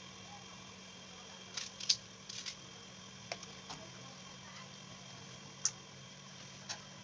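Onion quarters dropped into a stainless steel pot of water, making a series of short splashes and clinks. The loudest comes about two seconds in, and a steady low hum runs underneath.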